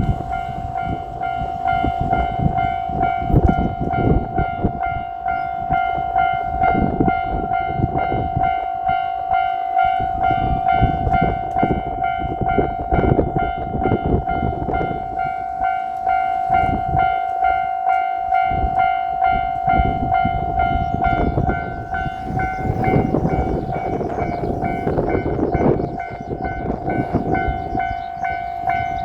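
Railway level-crossing warning bell ringing steadily on one unchanging tone, with an uneven low rumbling underneath.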